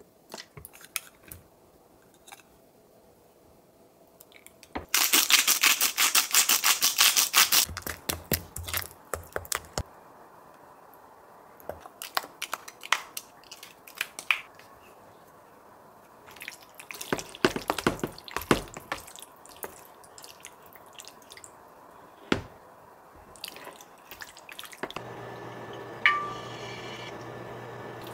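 A spoon stirring a thick chilli-paste marinade briskly in a glass dish, a fast run of clicks and clinks lasting about three seconds. Then come scattered clicks and scrapes as the sauce is spooned onto raw chicken and mixed. Near the end an induction cooktop comes on with a steady hum, and a single knock follows.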